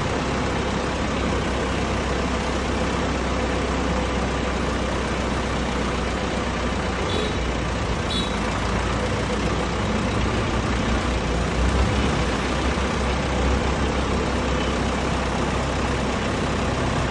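Oil-drum cutting and flattening machine running steadily, with a constant low hum under even mechanical noise and a couple of faint brief squeaks about seven and eight seconds in.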